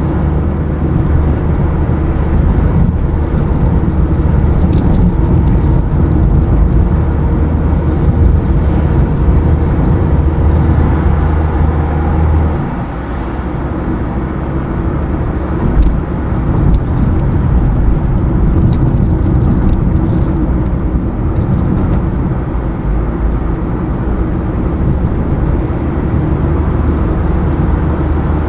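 A car driving on a highway: steady engine hum and road noise. The engine's steady tone drops away about halfway through, as the car eases off the throttle or changes gear.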